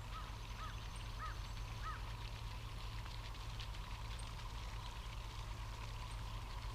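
A bird calling outdoors: four short rising-and-falling notes in the first two seconds, over a steady background.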